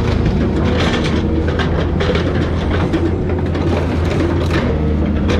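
Excavator engine running steadily under hydraulic load while its dismantling claw grips and tears a car body, with repeated crunching and cracking of sheet metal and plastic.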